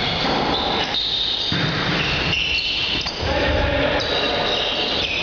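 Indoor volleyball play: the ball being struck and bouncing on the court floor, with short high-pitched squeaks over the hall's noise.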